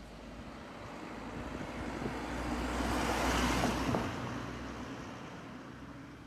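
A car driving past: tyre and engine noise swells to its loudest about three and a half seconds in, then fades away.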